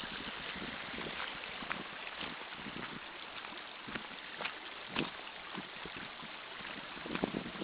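Steady rush of muddy rainwater runoff, with a few soft thuds scattered through it, the loudest about four and five seconds in.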